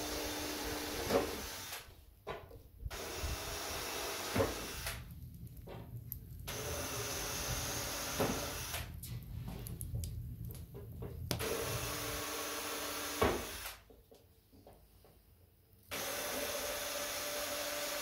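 Electric power tool running in repeated bursts of two to three seconds, starting and stopping with short pauses, with a few sharp knocks between bursts.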